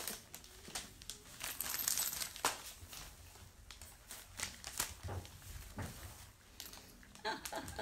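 Irregular small clicks and clinks of hard objects knocking against each other and against a hard surface, scattered throughout.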